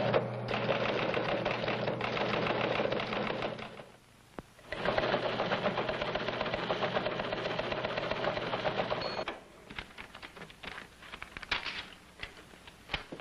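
Teletype machine clattering out a message in two long rapid runs, with a steady motor hum beneath, about a second's pause between them; scattered lighter clicks follow near the end.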